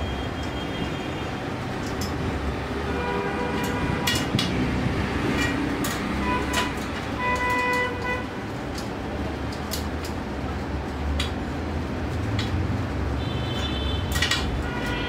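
Street traffic with vehicle horns honking several times, over a steady low rumble, with scattered sharp clicks.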